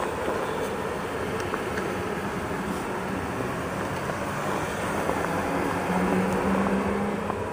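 Electric commuter train running at the platform, with a steady rumble and a low electric hum that grows louder about five seconds in.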